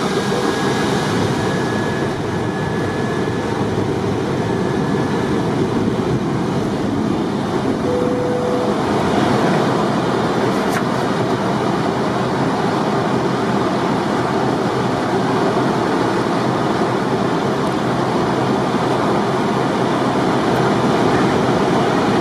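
Steady rush of airflow and engine noise inside a Boeing 737 cockpit in flight, with a short faint tone about eight seconds in.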